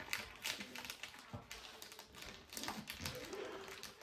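Wrapping paper rustling and crinkling as it is folded and creased by hand, in irregular crisp rustles and taps.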